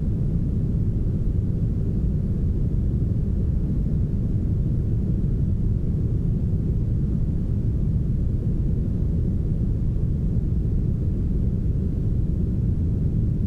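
Soft, smoothed brown noise: a steady, deep rushing hiss, heavy in the bass and with almost nothing in the treble, even and unchanging.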